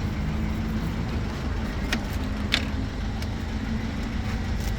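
Steady low rumble of a car's engine and road noise, with two sharp clicks about two seconds and two and a half seconds in.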